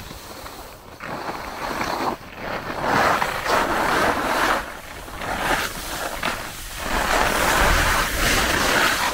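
Skis hissing and scraping over packed snow during a downhill run, mixed with wind buffeting the camera's microphone; the noise swells and fades several times.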